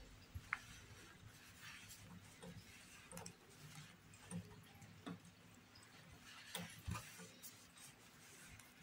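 Faint rustling of t-shirt yarn and a crochet hook as single crochet stitches are worked, with a few soft ticks.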